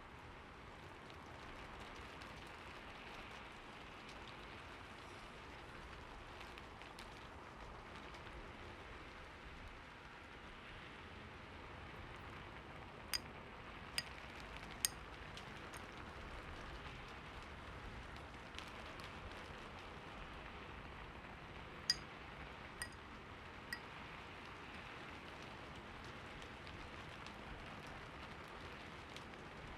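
Faint, steady rain hiss. Two sets of three short, bright ringing taps, each about a second apart, stand out over it, one set around the middle and one a little later.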